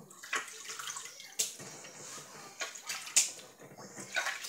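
Washing up by hand in a stainless steel kitchen sink: water sloshing and splashing, with sharp clinks of things knocking against the sink, the loudest about a second and a half in and just after three seconds.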